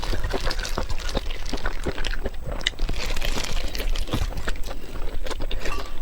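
Close-miked chewing: wet smacking and clicking mouth sounds, several a second, with no pause.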